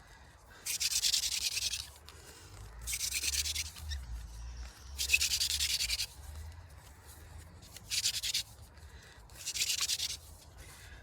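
Wooden hand-drill spindle grinding against a wooden fire board in friction-fire strokes: five separate scratchy, rasping bursts, each lasting under a second, a second or two apart.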